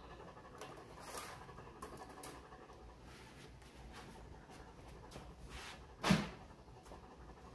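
Faint handling noises with a few light clicks. One short rustling thump about six seconds in as the welder's cardboard box is handled.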